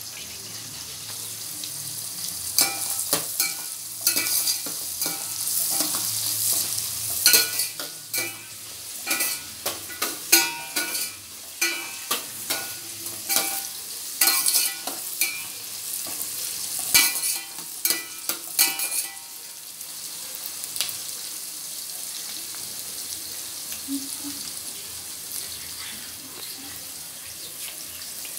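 Chopped onions sizzling in hot oil in a stainless steel pot, with a metal slotted spatula clanking and scraping against the pot as they are stirred for about the first two-thirds; after that the steady sizzle goes on alone.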